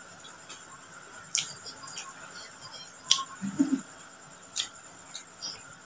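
Mouth sounds of eating grilled chicken by hand: sharp lip smacks and clicks, three of them about a second and a half apart, while chewing. A brief low murmur comes about halfway through.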